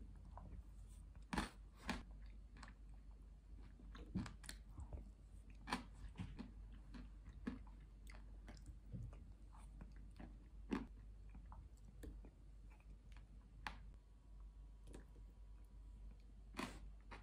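Faint eating sounds: a wooden spoon clicking and scraping in a ceramic smoothie bowl, and chewing of a thick smoothie with crunchy seed toppings, in irregular sharp clicks and knocks.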